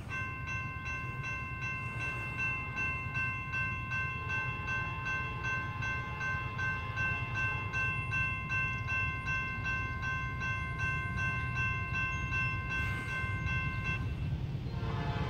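Railroad grade-crossing warning bell ringing in rapid, evenly spaced strikes, over a steady low rumble. The bell stops abruptly about fourteen seconds in.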